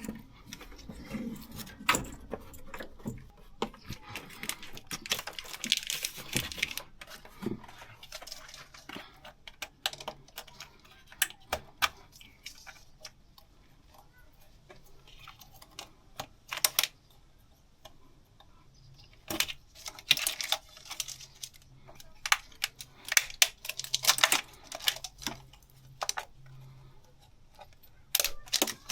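Metal hand tools and fasteners clicking and clinking in irregular clusters of sharp clicks, as parts are taken off to remove the intake manifold of a BMW B58 engine.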